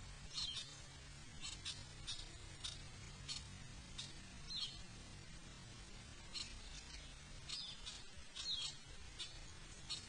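Short, high chirping calls repeated roughly every half second to a second, with a pause of about two seconds midway, over a faint low background hum.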